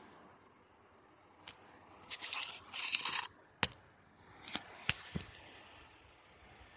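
A scraping, rustling handling noise for about a second, then four sharp clicks.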